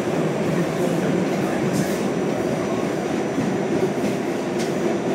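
Westinghouse-Amrail R68 subway car running in a tunnel, heard from inside the car: a steady, dense rumble of wheels on rail. Brief high hisses come through twice.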